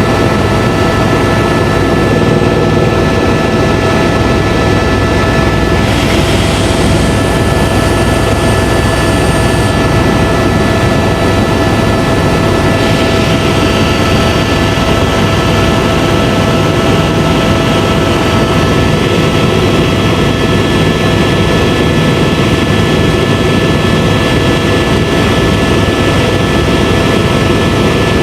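Tour helicopter's turbine engine and rotor running steadily, heard from on board: a dense, loud low rumble with a steady whine made of several fixed tones.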